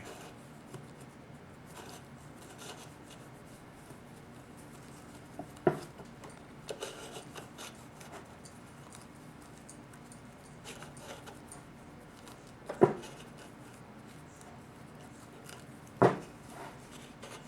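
Vanes and rotor of a 4L60E transmission oil pump being worked by hand: faint metal rubbing and scraping as the vanes are pushed into their slots, with three sharp clicks, one about a third of the way in, one past two-thirds and one near the end.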